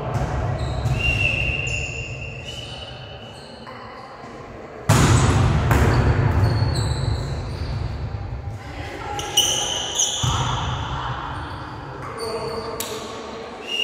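A volleyball being struck by hands during a rally in a reverberant gym: sharp slaps about five and ten seconds in, each ringing on in the hall, with short high squeaks of shoes on the court floor between the hits.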